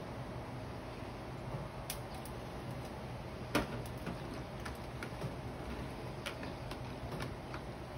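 Small clicks and taps of fingers tossing squid rings in beaten egg in a plastic tub, with one sharper knock about three and a half seconds in, over a steady low hum.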